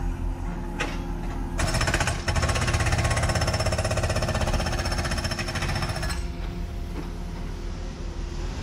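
Demolition hammer pounding in a rapid, continuous rattle that starts about a second and a half in and stops about six seconds in, over the steady low running of an excavator's diesel engine.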